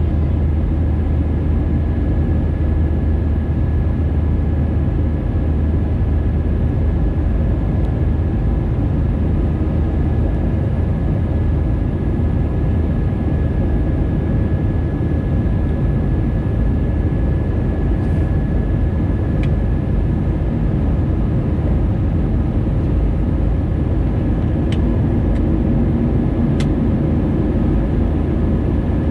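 Airbus A320neo jet engines running steadily, heard from on board: a loud, even low rumble with a thin steady whine above it.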